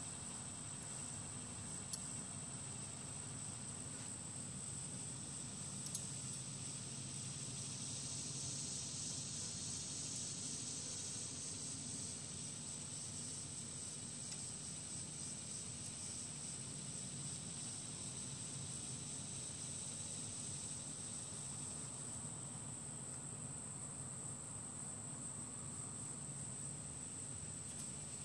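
A steady, high-pitched insect trill that swells a little around a third of the way in, over a faint low hum, with two small ticks early on.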